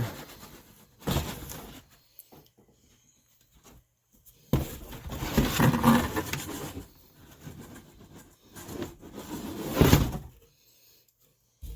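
Rustling and knocking as a boxed car inner fender liner and its packaging are handled, in three separate spells.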